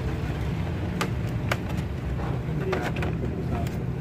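Clear plastic blister tray of a hair trimmer kit being handled and lifted out of its cardboard box, giving a few sharp plastic clicks and crackles. Under it runs a steady low rumble.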